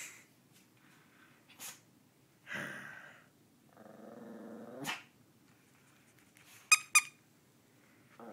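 Small white fluffy dog play-growling while tugging: a short growl, then a longer low growl of about a second, then two short, sharp, high yaps close together near the end.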